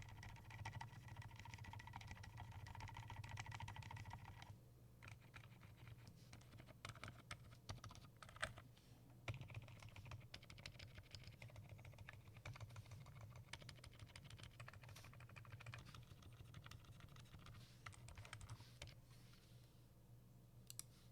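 Fast, continuous typing on a custom 60% mechanical keyboard with a wooden case, aluminium plate, lubed Gazzew Boba Gum switches and Tai-Hao PBT keycaps. The keystrokes pause briefly about five and nine seconds in and trail off near the end.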